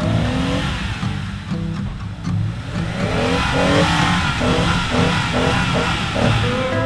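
4x4 vehicle engine running under load, then revving up and down in quick repeated bursts, about three a second, from about three seconds in. Music comes in underneath.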